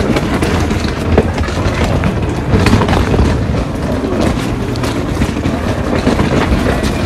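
Continuous low, uneven vehicle rumble, with scattered knocks and clicks on top.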